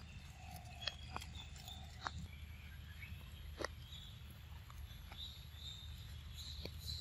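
Faint outdoor forest ambience: a steady low hum with scattered small clicks and faint high calls in the second half.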